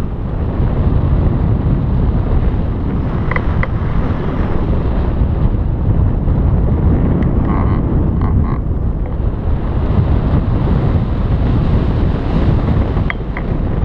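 Wind buffeting the microphone: a steady, loud, low rumble, with a few faint short high tones near the start and near the end.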